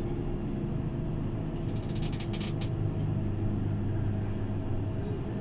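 Tour bus running while stopped, heard inside the cabin as a steady low hum, with a short run of rapid clicks about two seconds in.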